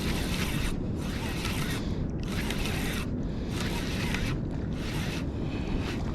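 Van Staal spinning reel being cranked while a hooked fish is played in, its winding coming as about six hissing, scraping strokes roughly a second apart, over a steady rumble of wind and surf.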